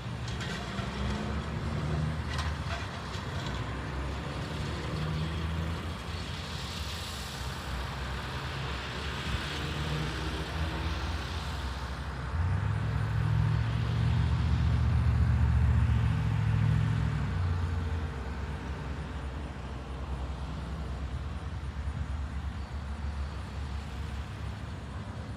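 Heavy diesel engine of construction machinery running with a steady low rumble. It grows louder for about five seconds around the middle, then settles back.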